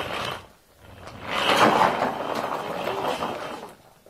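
Hard plastic wheels of a trolley suitcase rolling over a rough road surface, a steady grinding rattle that swells about a second in and fades near the end.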